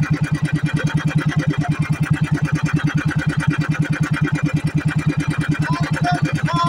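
Outrigger boat's inboard engine running steadily under way, a low hum with a rapid, even pulse.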